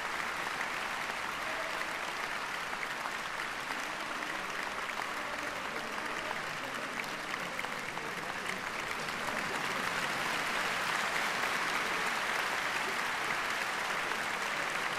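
Concert-hall audience applauding steadily, the clapping growing a little louder about two-thirds of the way through.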